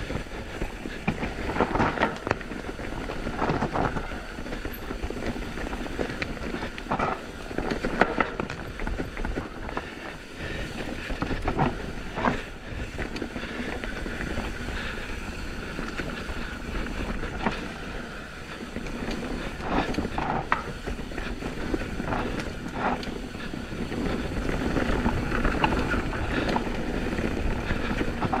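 Downhill mountain bike ridden fast over rough dirt trail: steady tyre and wind rumble with frequent rattling and sharp knocks from the bike as it hits roots and rocks.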